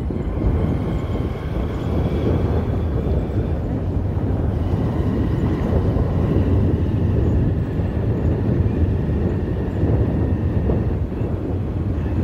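Motorcycle running at a steady pace along a road: a constant low rumble of engine and passing air.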